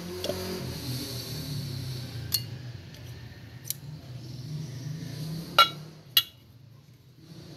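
Metal engine parts being handled: four sharp clinks and knocks of aluminium crankcase halves and tools, the two loudest close together near the end, over a steady low hum.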